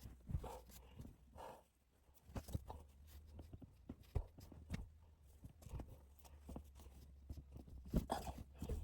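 Soft rustling and small irregular knocks of something being folded and handled by hand.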